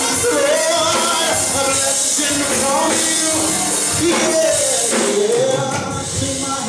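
Live gospel singing: a male lead vocalist sings long sliding melismatic runs into a microphone over steady sustained backing chords.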